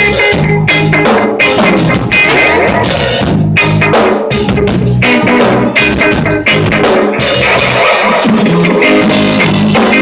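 Live rock band playing loud: electric guitar over a Pearl drum kit, with steady drum hits.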